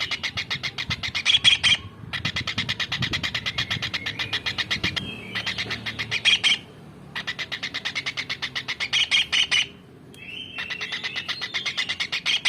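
Tengkek udang (small kingfisher) calling in rapid trilled bouts of sharp, evenly repeated high notes, each bout a second or two long with short pauses between, several bouts in a row.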